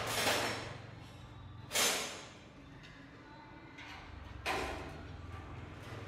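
Three short, sharp noisy bursts of metal being worked by hand with pliers, each dying away within about half a second, over a low steady hum.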